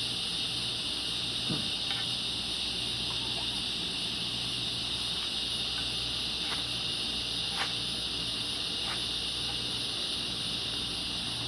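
Electric fan blowing steadily, a constant hiss over a low hum, with a few faint short clicks.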